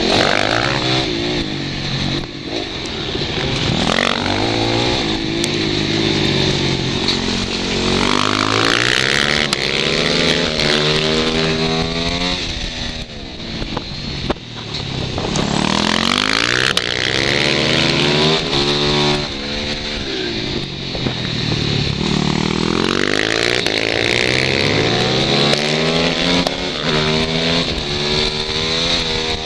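Supermoto motorcycle engine heard from on board, accelerating hard and shifting up, the engine note climbing and dropping back over and over as it is ridden around a track.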